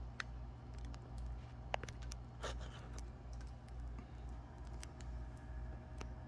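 A handful of scattered key clicks from a 1970s electric office machine, the sharpest a little under two seconds in, over a steady low electric motor hum.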